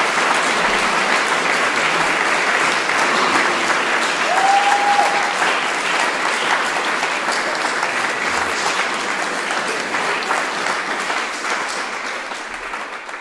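Audience applauding steadily, a dense patter of many hands. A single short call rises above it about four seconds in, and the applause fades out near the end.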